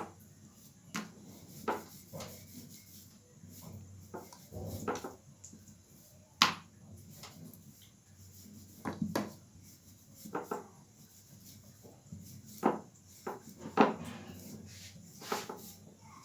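Rolling pin rolling out a ball of paratha dough on a wooden board. It makes soft rubbing with irregular light knocks as the pin meets the board.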